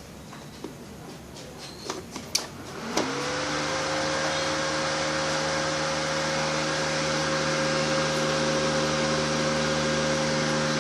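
A few light clicks, then about three seconds in the inverter welding machine's cooling fan starts suddenly, comes up to speed and runs steadily with a hum and a rush of air. This is the repaired welder powering up again.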